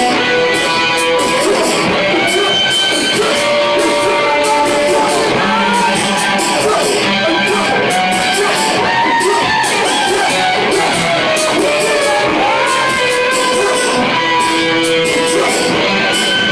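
Live band playing loud: an electric guitar strummed over synthesizers and electronics, with held tones and short pitch glides running through it.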